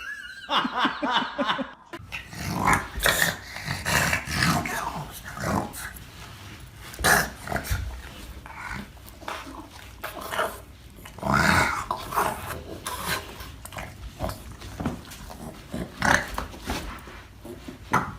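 A dog growling in irregular bursts.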